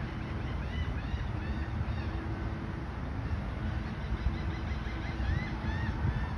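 Small birds chirping in short repeated calls, over a steady low rumble of wind on the microphone.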